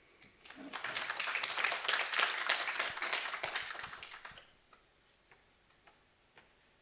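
Applause from a small, sparse audience: many hands clapping, building up quickly and dying away after about four seconds.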